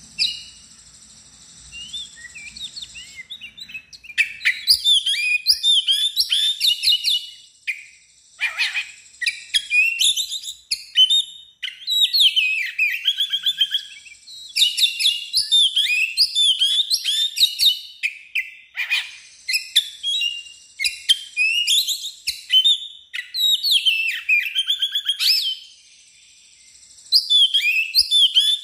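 Oriental magpie-robin (kacer) singing a loud, varied song of rapid chirps, whistles and trills in bouts of a few seconds, with brief pauses between bouts. The bird is in full, excited song (gacor).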